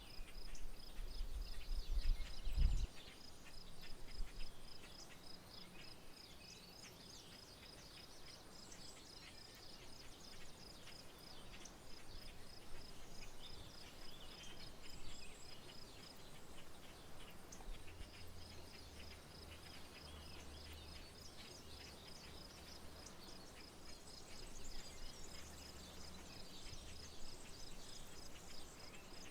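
Outdoor rural soundscape: an insect's steady, rapidly pulsing high trill, broken off twice, with scattered bird chirps. A low rumble, loudest in the first few seconds, and a faint low hum through the second half.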